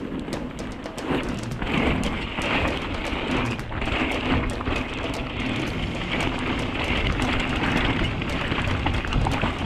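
Enduro mountain bike rolling down a wet, rocky dirt road in the rain: tyres on wet gravel and rain noise, with many sharp small clicks and rattles. It gets louder about a second in.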